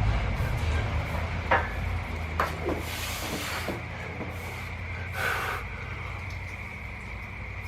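A lifter's hissing exhalations as he works through a set of barbell bent-over rows, two breaths a couple of seconds apart, with a few sharp clicks early on. A steady low drone and a thin steady tone run underneath.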